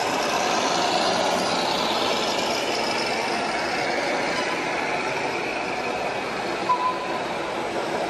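Diesel truck engine sound played by a 1/14 scale RC truck's sound unit as the model drives by, over the steady din of a large exhibition hall. A short high beep about two-thirds of the way through.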